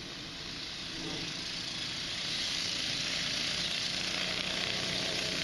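Go-kart's Predator 420cc single-cylinder engine running in the distance, growing louder over the first couple of seconds as the kart approaches, over a steady hiss.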